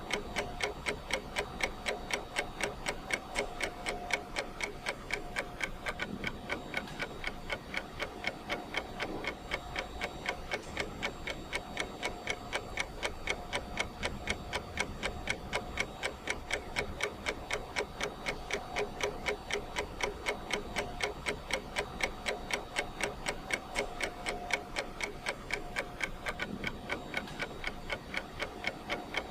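Clock ticking steadily, with even, regularly spaced ticks.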